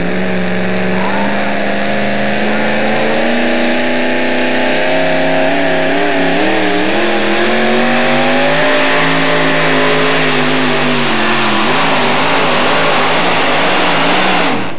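Two-wheel-drive pulling truck's engine running hard and loud while it drags the weight-transfer sled, its pitch wavering and climbing slightly mid-pull. The sound drops away suddenly near the end.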